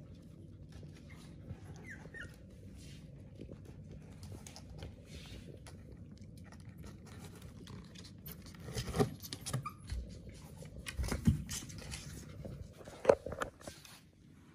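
Pomeranian puppies whimpering and making small yips: a brief high whine about two seconds in, then a few louder yips and knocks in the last several seconds.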